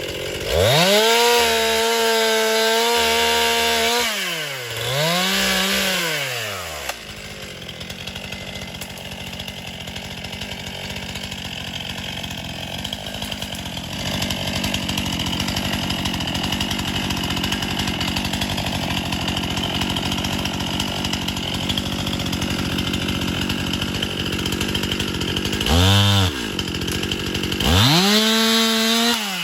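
Two-stroke chainsaw run up to full speed for a few seconds, eased off and run up again, then left idling for a long stretch before a short blip and another run up near the end, the pitch falling away as it drops back.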